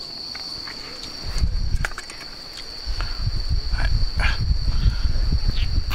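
Crickets chirping in a steady high trill, under an irregular low rumble that comes in about a second and a half in and again from about three seconds on. A few light knocks and clinks of a clay pot and a metal lantern being handled.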